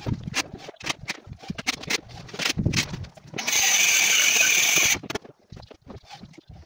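Footsteps and scattered knocks of wood being handled, with a loud steady hiss lasting about a second and a half midway.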